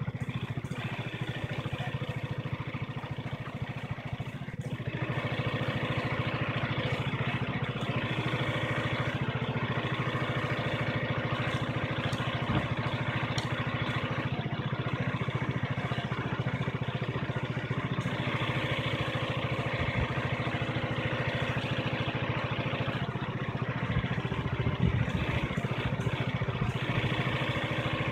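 Small engine-driven pump for a soil-injection sprayer, running steadily and feeding the treatment liquid through the hose to the injection lance. It runs a little louder from about four seconds in.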